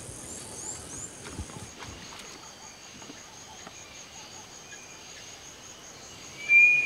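Steady chorus of insects with a high pulsing buzz, and near the end a single loud whistled bird call that holds its pitch and then slides down.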